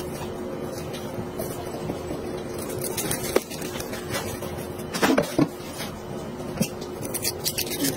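Knife cutting up a raw chicken on a plastic cutting board: scattered knocks and scrapes of the blade against the board, louder about five seconds in, over a steady background hum.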